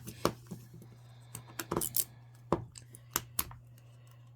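Small plastic clicks and rustles from a Miniverse mini ball being handled and opened: about a dozen short, sharp clicks at uneven spacing, bunched in the middle, over a faint steady low hum.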